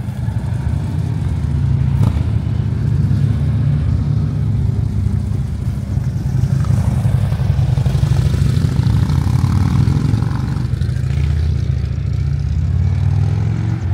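Harley-Davidson V-twin motorcycle engine running with a loud, deep, pulsing low note, as a touring bike rides past.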